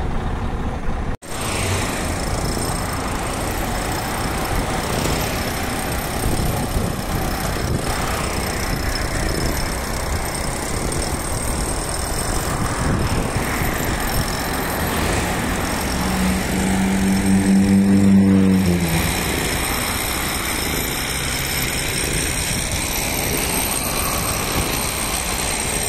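Road traffic noise: a steady wash of engine and tyre sound from vehicles on a highway, after a sudden break about a second in. A little past the middle a low droning tone from a heavy vehicle rises above it for about two seconds, dropping slightly in pitch as it fades.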